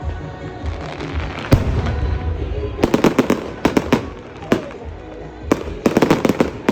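Fireworks going off: a single loud bang, then rapid clusters of crackling bursts, over a low continuous rumble of distant explosions.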